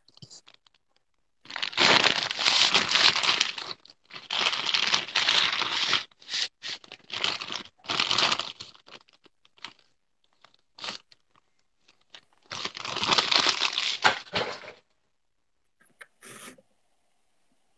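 Plastic bag of marshmallows being handled, crinkling and rustling loudly in several stretches of one to two seconds, with a pause of a few seconds before the last one.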